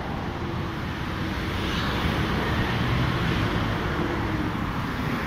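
City street traffic noise: a steady wash of car engines and tyres, a little louder in the middle as vehicles pass.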